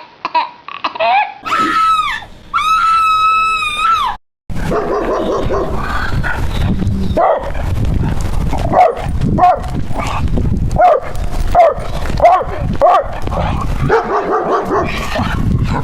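Dogs barking and yipping, with short high whimpering yelps repeating quickly, starting after a brief dropout about four seconds in. Before that, a few long high wailing cries.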